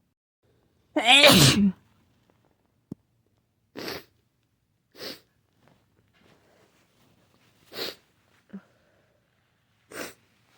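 A run of sneezes: one loud, voiced sneeze falling in pitch about a second in, then four shorter, quieter sneezes one to three seconds apart.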